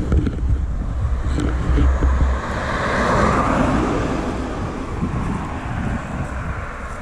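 A vehicle passing on the road: its noise swells to a peak about three seconds in and then fades. Beneath it a deep rumble cuts off about two and a half seconds in.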